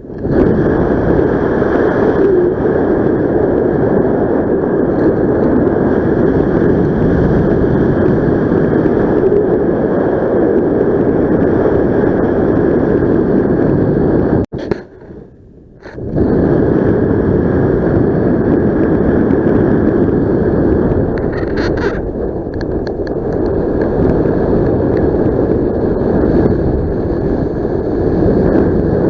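Wind rushing over the microphone during paraglider flight, a steady loud rush that cuts out suddenly for about a second and a half midway and then returns.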